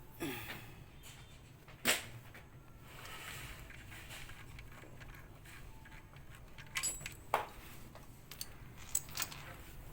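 Scattered sharp clicks and metallic clinks of tools and fittings being handled, the loudest about two seconds in and again near seven and a half seconds, over a low steady hum.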